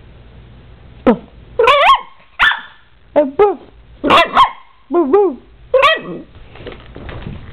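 Miniature Pinscher vocalizing in a run of about ten short yips and yowls, each bending up and down in pitch, then a fainter rough growl near the end.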